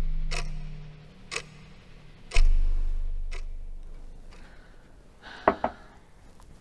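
Thriller film score: clock-like ticks about once a second over a deep bass hit that fades slowly, with a short, sharper sound about 5.5 seconds in.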